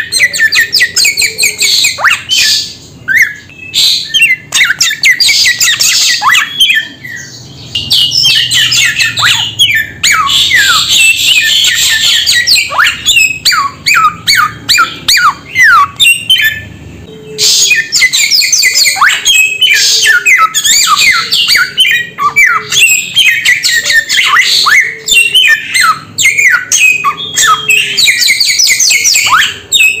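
Songbird known in Indonesia as the samyong calling loudly in long bouts of rapid, harsh, sharply falling notes, several a second. Brief pauses break the bouts.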